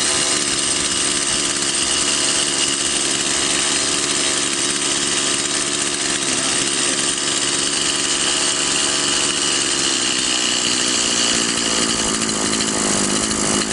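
Stihl chainsaw's two-stroke engine idling fast while its idle speed screw is turned down; the revs settle lower about ten seconds in. The idle is set too high, after extra fuel was given through the carburettor needle, and is being brought down so the engine runs calmly with the chain still.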